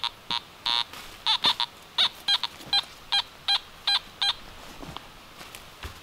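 Metal detector giving a quick run of short electronic beeps, settling into about two to three a second, which stops after about four seconds: the tone of a buried metal target under the coil.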